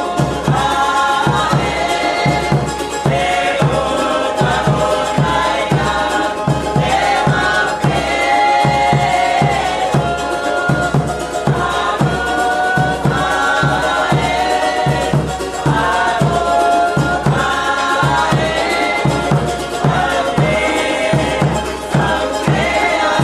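Live Tahitian music: a group singing together over a steady drum beat of about two strokes a second.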